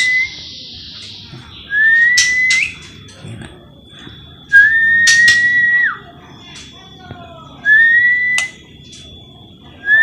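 A clear, loud whistled note, held for about a second with a slight upward slide at its start, repeated four times about three seconds apart. A faint steady high-pitched tone runs behind, with a few soft clicks and short chirps between the notes.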